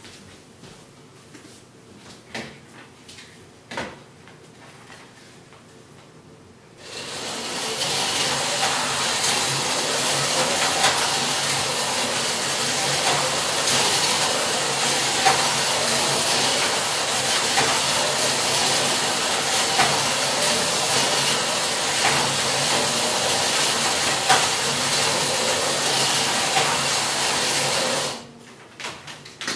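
Carrera slot cars lapping a figure-eight plastic track: their small electric motors and wheels make a steady whirring hiss. It starts about seven seconds in, after a few faint clicks, and stops abruptly near the end.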